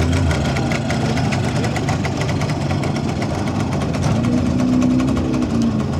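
Messerschmitt bubble car's single-cylinder two-stroke engine running steadily at idle.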